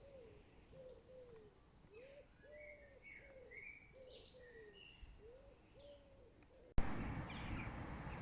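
A bird cooing in repeated low, arched two-note phrases, with small birds chirping higher up. Shortly before the end it cuts abruptly to a louder steady rushing noise.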